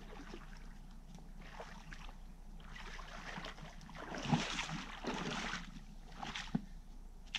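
Water splashing and sloshing as a person wades through shallow water in waders, in several uneven surges with a few knocks, the loudest about four seconds in.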